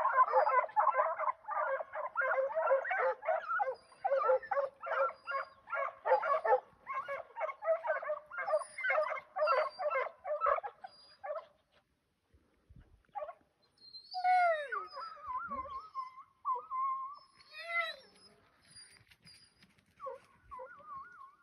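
A pack of foxhounds in full cry on a hare, rapid overlapping baying that breaks off about halfway through. After a short lull come a few long, wavering howls.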